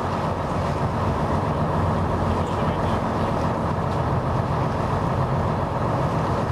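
Boat engine running with a steady drone.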